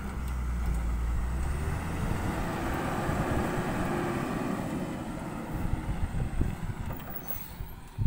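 Tata tipper truck's diesel engine running as the loaded-off truck pulls away over a dirt track, with a low hum at first, then a broad rumble that fades toward the end.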